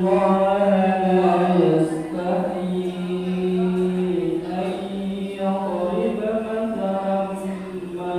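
A single voice chanting Quran recitation in Arabic, melodic, with long held notes that glide between pitches.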